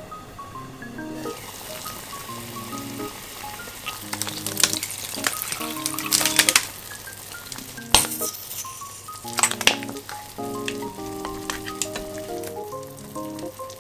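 A pot of yukgaejang soup simmering on the hob, a steady hiss of bubbling broth from about a second in. A metal measuring spoon and ladle clink against the pot several times, the loudest about eight seconds in. Light background music with a melody plays throughout.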